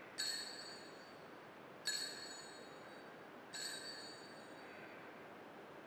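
Altar bells struck three times, about a second and a half apart, each a bright metallic ring with several high tones that fades away: the bell rung at the elevation of the chalice at Mass.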